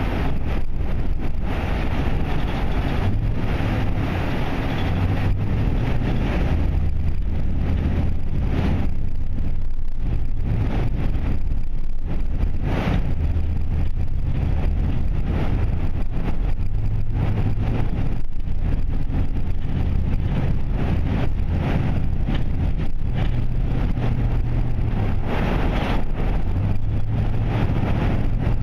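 Steady low rumble of a car's engine and tyres heard from inside the cabin while driving through a road tunnel in slow traffic.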